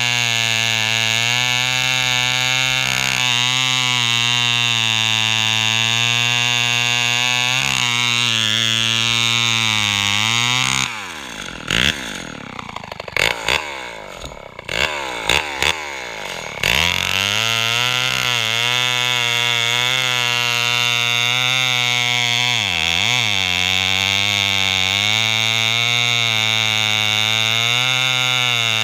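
A Lombard AL42 two-stroke chainsaw running at high revs. About eleven seconds in the revs fall away for several seconds with some clicks, then it revs back up and runs steady again, with a brief dip near the end.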